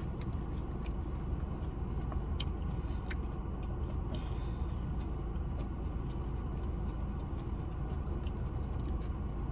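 Eating sounds: chewing and scattered small clicks of utensils and food container, over a steady low rumble.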